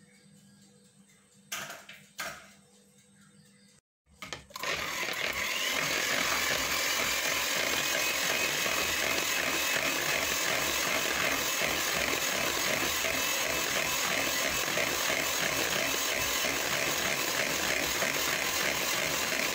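Electric hand mixer beating three raw eggs, running steadily with a whirring noise and a faint whine that rises a little just after it starts. Two short knocks come before it starts.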